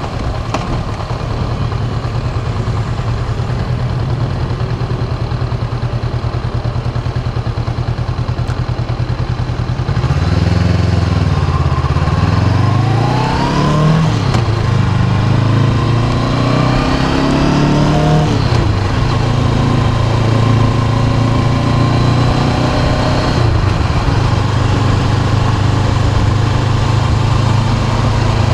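Honda CB500X's 471 cc parallel-twin engine on the move: steady for about the first ten seconds, then revving up twice with a drop in pitch after each rise, as through two gear changes, before settling to a steady cruise.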